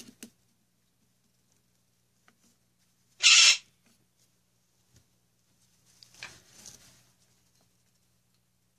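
A pet bird yelling: one short, loud, harsh scream about three seconds in, followed by a fainter call around six seconds in.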